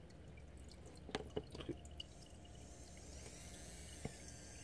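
A few faint clicks and taps of lens parts being handled as a CCTV zoom lens barrel is taken apart, at low level.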